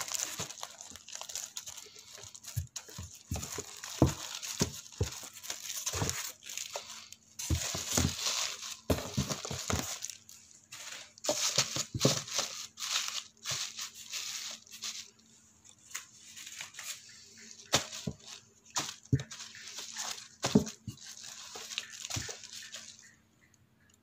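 Plastic wrapping and bags crinkling as packaging is handled inside a cardboard box, with scattered knocks and taps; the rustling stops about a second before the end.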